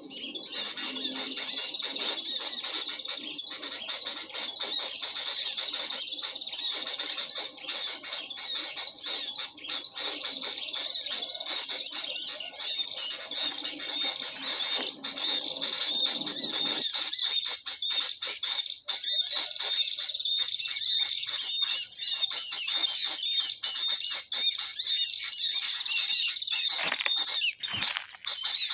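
Many small birds chirping and twittering continuously, with a steady high note running under the calls. A lower rustling noise underneath stops about two thirds of the way through.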